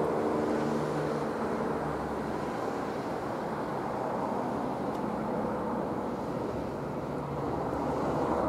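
Steady distant engine rumble with a low hum that comes and goes.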